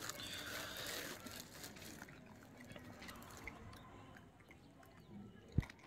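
Faint close-up crunching and crackling, typical of a gray langur chewing seeds, louder in the first couple of seconds. A single sharp knock near the end.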